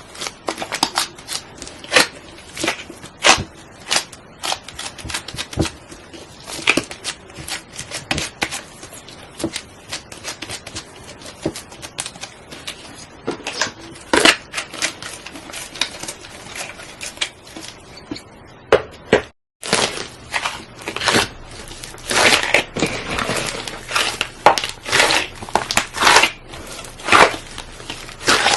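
Slime being kneaded and squeezed by hand, giving an irregular run of sharp clicks and pops as trapped air bursts, with a momentary gap about two-thirds of the way through.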